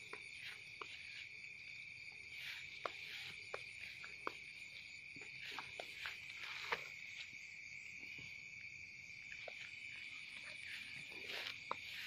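Steady, high-pitched chorus of night insects such as crickets, running unbroken, with scattered faint clicks over it.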